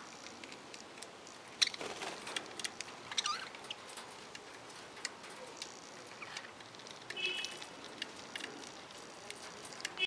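A flock of budgerigars giving scattered soft chirps and clicks, with a sharp click a little under two seconds in and a short warbled call about seven seconds in.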